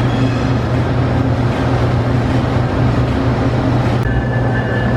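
GE P42DC diesel locomotive's 16-cylinder engine running, a loud, steady, deep drone. A thin, high whine joins it about four seconds in.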